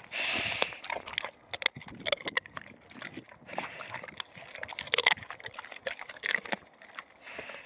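Bullmastiff chewing a raw chicken bone: irregular sharp crunches and cracks as its jaws break the bone.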